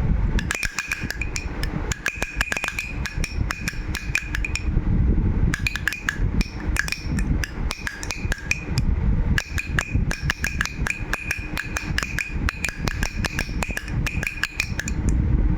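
Baby's rattle toy shaken in quick, irregular bursts of clicks, many strokes carrying a short bright ring, with a brief pause about five seconds in. A low rumble runs underneath.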